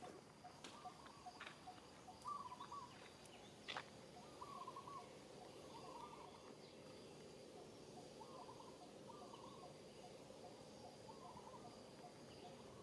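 Faint outdoor ambience: a bird calls over and over in short warbling phrases, about one a second, over a steady thin insect whine, with a few soft clicks in the first few seconds.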